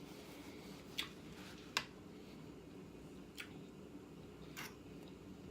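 Eating sounds in a pause between words: four short, sharp clicks spaced a second or so apart, over a faint steady low hum.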